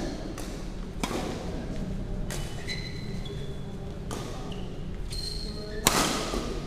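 Badminton rally: rackets strike the shuttlecock about five times, one to two seconds apart, with the loudest hit near the end. Short high squeaks of court shoes on the floor come between the hits.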